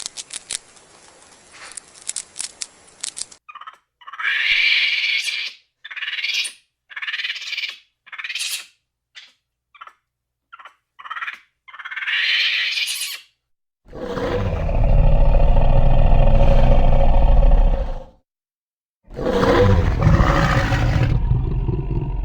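Animal sounds in sequence: a quick run of clicks, then a string of short high-pitched squeaky calls, then two long, loud roars.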